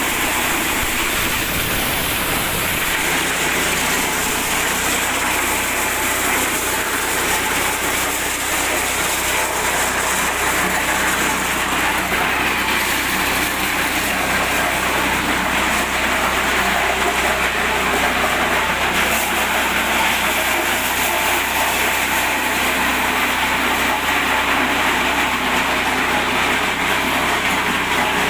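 Mini corn sheller driven by an 8 hp petrol engine, running steadily with an even mechanical noise.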